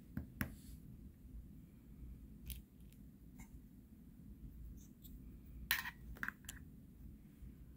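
Small handling clicks: two button clicks near the start as a digital pocket scale is switched on, then a few faint taps and a louder cluster of metallic clicks about six seconds in as the metal screw-on lid of a pellet tin is handled.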